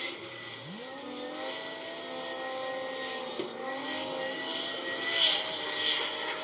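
Heavy diesel machinery, the gravel ship's grab crane and a Kawasaki 90ZV wheel loader, running and working. One engine revs up in a rising pitch about a second in, and there is a short louder burst about five seconds in.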